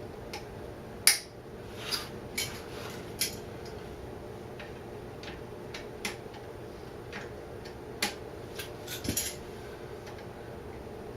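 Metal hand tools clinking and tapping against motorcycle parts in scattered sharp clicks, the loudest about a second in and a quick cluster near the end, over a steady background hum.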